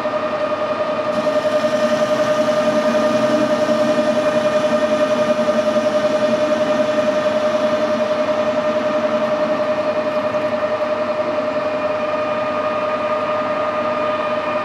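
Metal lathe running with a steady whine while the cutting tool takes a half-millimetre facing cut across the end of a round metal bar; a rougher cutting noise rises under the whine through the middle of the pass.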